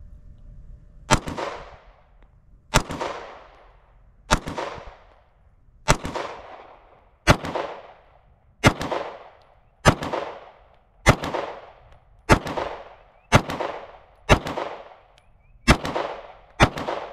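A 9mm Shadow Systems CR920P pistol fired thirteen times in slow, deliberate single shots, about one to one and a half seconds apart, coming slightly quicker near the end. Each shot is followed by a short echo.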